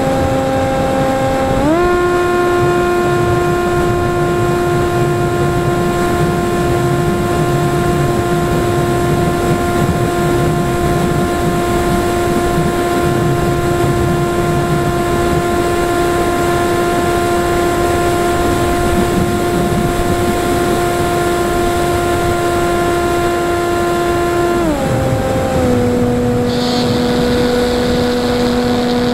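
Falcon Evo FPV flying wing's electric motor and propeller in flight, heard from the plane's onboard camera over a rush of wind. The steady whine steps up in pitch about two seconds in as the throttle opens, holds there, then drops back near the end.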